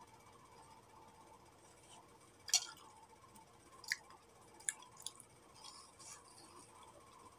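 Faint mouth sounds of someone eating soft, juicy fruit: a few short wet smacks and slurps, the loudest about two and a half seconds in and smaller ones around four and five seconds in.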